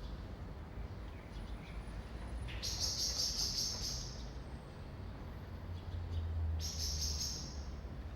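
Two bursts of rapid, high-pitched bird trilling, the first about two and a half seconds in and lasting over a second, the second near the end, over a steady low rumble of distant city traffic.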